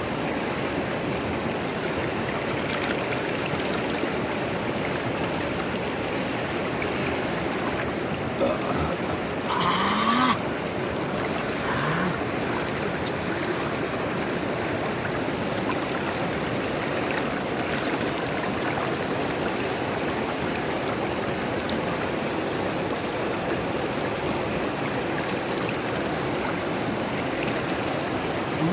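Steady rush of a shallow, fast-flowing river running over rocks and rapids. Two short rising sounds break in briefly, about ten and twelve seconds in.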